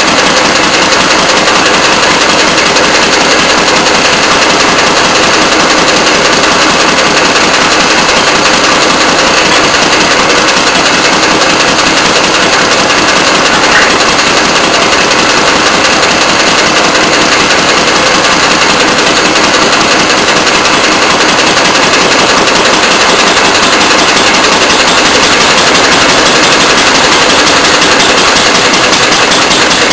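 Antique Fairbanks Morse throttle-governed single-cylinder stationary engine running with a rapid, steady beat, loaded by a wooden prony brake clamped on its flywheel.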